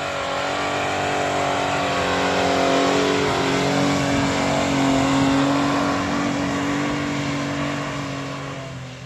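Mitsubishi Pajero II's engine revving hard and held at high revs under load as the SUV climbs a hill, getting louder over the first few seconds and then fading near the end.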